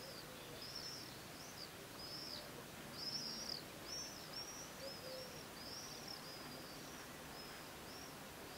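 A small bird calling: a run of short, high, arched chirps, one or two a second, loudest about three seconds in, over a steady hiss of background noise.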